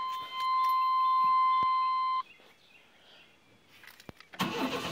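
A van's warning buzzer sounds a steady high tone and cuts off abruptly about two seconds in. Near the end, the 1995 GMC Safari's 4.3-litre V6 cranks and starts on its newly replaced fuel pump.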